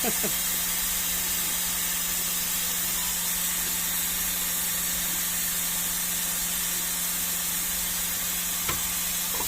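Steady hum with an even hiss, unchanging in level, with one faint click near the end.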